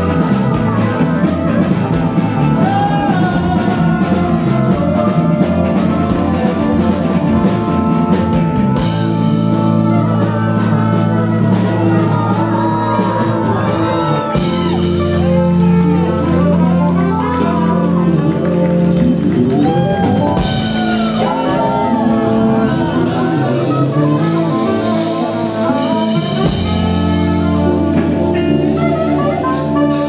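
Live rock band playing an instrumental passage: electric guitar and keyboards over sustained chords, with sliding lead lines on top.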